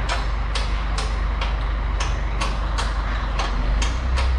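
Mobile crane's engine running with a steady low rumble as it lifts a load, over a regular sharp clicking about twice a second.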